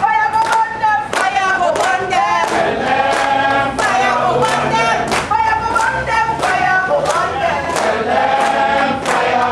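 A group of demonstrators singing together, clapping their hands in time at about two claps a second.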